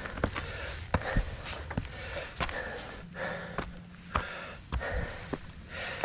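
A person breathing hard in repeated puffs, with footsteps and small scuffs and knocks on rocky ground.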